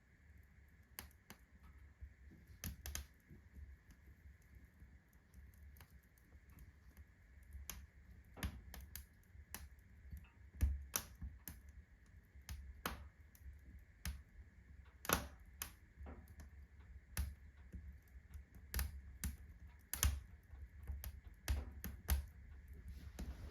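Cast-iron fireplace stove ticking and clicking irregularly as its metal expands under the fast heat of freshly lit kindling, the clicks growing louder and more frequent after the first few seconds. Near the end a rushing hiss sets in.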